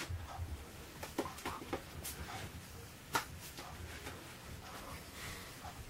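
Faint rustling of hands and clothing as a person gestures, with a few short, sharp clicks over a low hum; the sharpest click comes about three seconds in.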